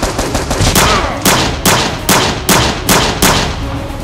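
Gunshot sound effects in a steady run of about nine shots, some two and a half a second, stopping shortly before the end; the gunfire is dubbed over a Nerf blaster being fired.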